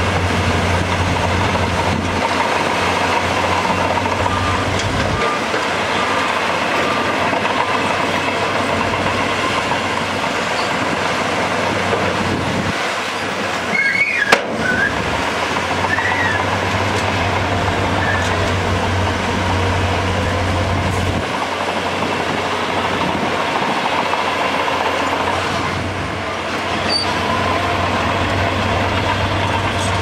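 Heavy diesel machinery working: a Shantui crawler bulldozer running, its steel tracks clattering and squealing, alongside dump truck engines as a load of dirt and rock is tipped. One sharp knock comes about fourteen seconds in.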